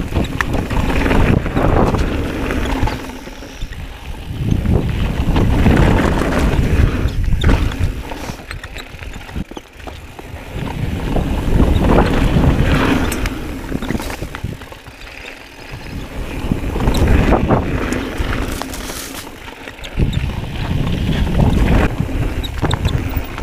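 Mountain bike ridden fast down a dirt singletrack. Wind buffets the microphone, the tyres rumble over dirt and gravel, and the bike knocks and rattles over bumps. The noise is loud and surges and eases every few seconds.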